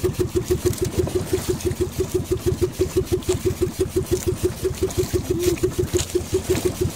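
Small engine of an outrigger fishing boat running steadily, with an even chugging beat of about six or seven pulses a second.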